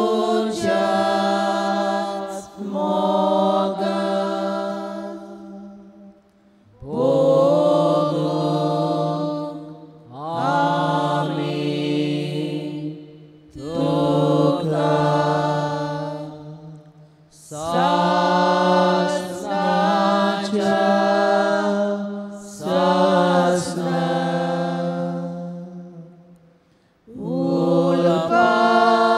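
A slow devotional hymn sung in Konkani, in long held phrases with a short breath between each, about every three to four seconds.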